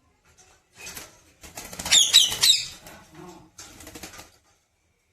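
Pet parrot flapping its wings in three short spells, with a few quick high chirps about two seconds in.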